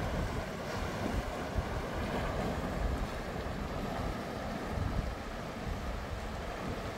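Fast mountain river rushing over rocks and rapids, a steady noise, with wind buffeting the microphone.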